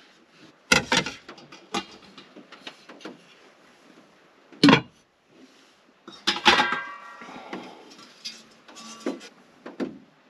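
Knocks and clatter of a cooking pan and cooktop being handled and set down, a few separate clunks. About six seconds in comes a metallic clang that rings for about a second.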